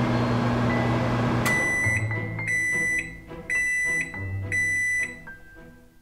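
Microwave oven humming steadily, then cutting off about a second and a half in and giving a run of high beeps, about two a second, that fades out near the end: the signal that the heating cycle is done.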